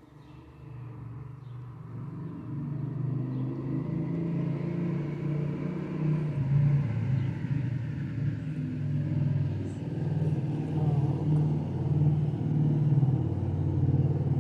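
Motorcycle engine running close by, growing louder over the first few seconds and then holding at a steady, uneven rumble.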